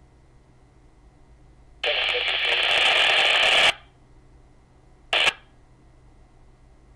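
Baofeng UV-5R handheld radio receiving a UHF test call: about two seconds of hissy, static-laden radio audio with a voice buried in the noise. A short burst of squelch noise follows a second or so later, as the transmission drops.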